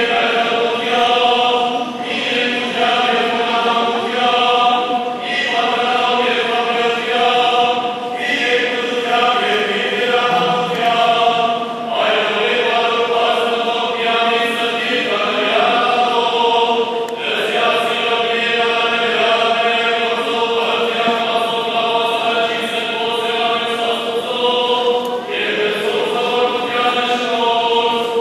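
Church choir singing Armenian liturgical chant in slow phrases of long held notes.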